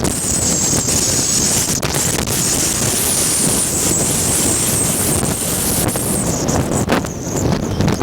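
Strong wind blowing across the microphone in a constant loud rumble, with a thin high whistle that wavers and fades near the end.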